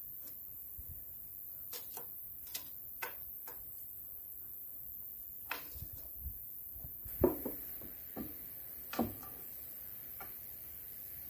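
Scattered light clicks and knocks of hand tools and wooden boards being handled, with two louder knocks about seven and nine seconds in.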